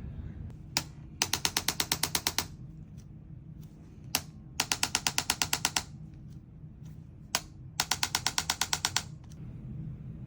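A handheld chiropractic adjusting instrument firing three times, each a single click followed by a rapid run of sharp mechanical clicks lasting just over a second.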